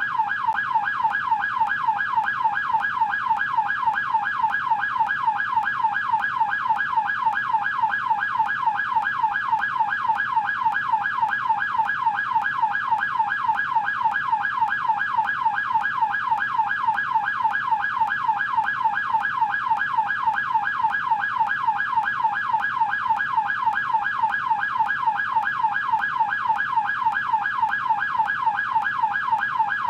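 American police car siren in yelp mode: a fast, unbroken rising-and-falling wail that repeats several times a second, steady in level.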